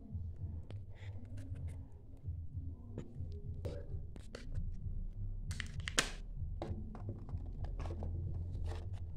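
Kinder Joy plastic egg and its wrapper being pulled apart and handled, giving scattered crackles and clicks, with a louder stretch of crinkling and tearing about five and a half seconds in. A low steady hum runs underneath.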